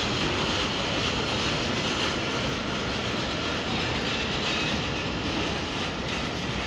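Pakistan Railways passenger coaches rolling past as the train pulls into the station: a steady noise of wheels running on the rails.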